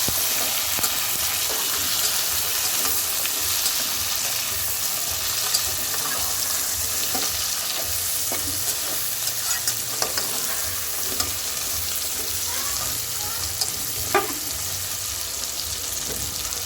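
Chopped potatoes sizzling in hot oil with fried onions, ginger and garlic as they are stirred, the stirring utensil clicking against the pot now and then, with one sharper knock about fourteen seconds in.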